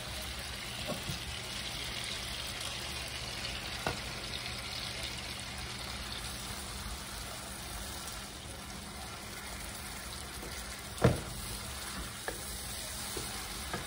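Fish in a tomato and coconut sauce sizzling steadily in a skillet, stirred with a wooden spatula that knocks against the pan a few times, loudest about eleven seconds in.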